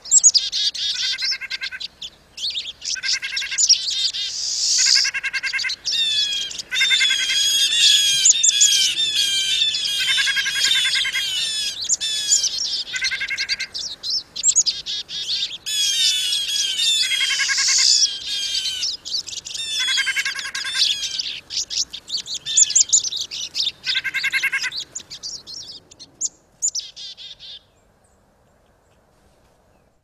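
Several winter feeder birds calling at once: pine siskins, black-capped chickadees, a white-breasted nuthatch and a blue jay. The siskins give a run of varied high twitters and wheezy rising and falling calls. A lower call repeats every two or three seconds. The recording stops abruptly near the end.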